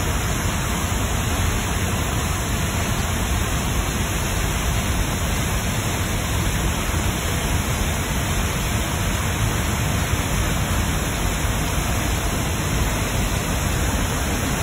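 Waterfall on the Wallace River in heavy flow, plunging into a pool: a loud, steady rush of white water.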